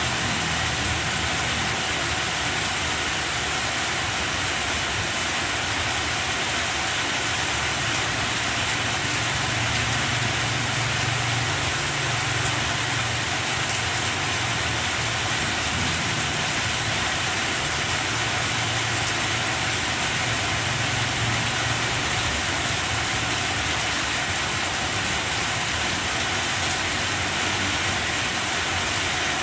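Steady heavy rain falling on banana plants, an even hiss without a break. A low rumble swells and fades twice, near the middle and again about two-thirds of the way in.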